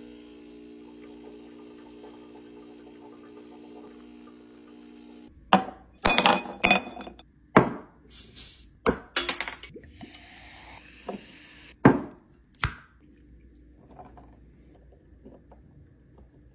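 Espresso machine pump humming steadily during a shot, cutting off after about five seconds. Then a run of glass clinks and clicks, a sharp hiss, and the fizz of tonic water being poured into a glass, ending in two more clinks.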